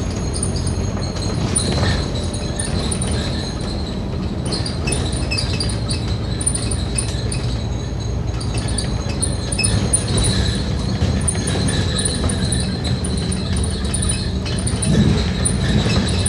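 Scania K310UD double-decker bus on the move: a steady engine and drivetrain drone, with a light high tinkling over it.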